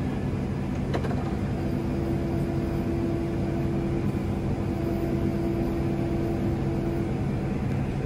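New Holland combine running while harvesting wheat, heard inside the cab: a steady machine hum. A single click comes about a second in, and a higher steady tone joins about one and a half seconds in and stops near the end.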